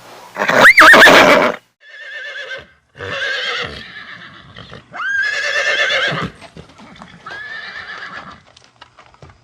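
Horse neighing. A loud breathy blast about half a second in is followed by four separate whinnies, each about a second long, with a few light knocks near the end.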